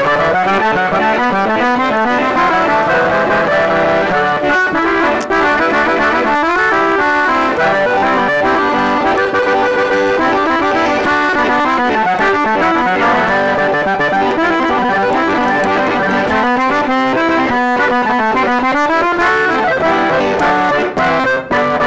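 Gabbanelli three-row button accordion (keys G, C, F) played solo in a conjunto style: quick melodic runs over held chords, with sweeping scale runs down and back up at the start and again near the end.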